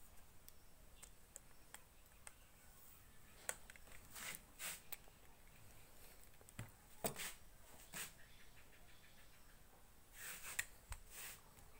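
Faint handling noise of a plastic-and-metal selfie stick tripod: scattered light clicks and brief rustles, with a small cluster of them near the end.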